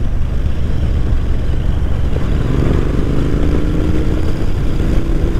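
Royal Enfield Interceptor 650's parallel-twin engine running under way through short slip-on exhausts, heard against heavy low wind rumble on the microphone. The engine note climbs a little from about halfway in as the bike picks up speed.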